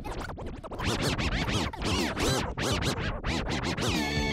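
DJ record scratching in a hip-hop/rock remix: quick back-and-forth pitch sweeps cut one after another. Near the end a sustained guitar chord comes in.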